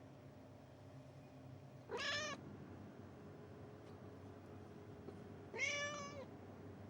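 Cat meowing twice: a short meow about two seconds in and a longer one near the end.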